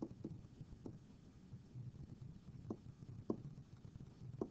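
Faint, soft taps of a stylus on a pen tablet as words are handwritten, about five scattered taps over a low steady hum.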